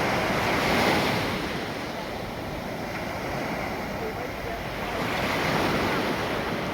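Sea waves breaking and washing onto the shore, the surf swelling about a second in and again near the end.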